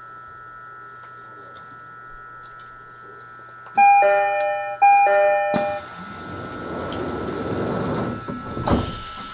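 A train's two-tone door chime sounds twice, ding-dong, then a sudden rush of noise with a falling whistle runs for a couple of seconds and ends in a sharp knock near the end. This fits the doors of an E129-series train closing before it leaves a station.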